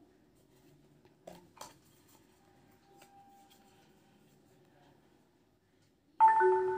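A boAt Stone 200 Bluetooth speaker, its 5 W driver refitted after being opened, comes on near the end with a sudden loud steady tone, a sound that is plainly poor: "itna ghatiya awaaz". Before that, two soft clicks of the parts being handled.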